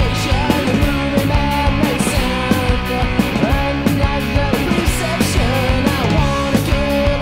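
Rock band studio recording: electric guitars, bass and drums playing with a steady beat.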